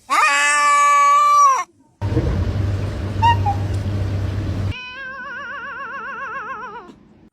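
Cat vocalisations in separate short clips: a loud, long, steady meow, then a noisy stretch with one short chirp, then a wavering, warbling yowl lasting about two seconds.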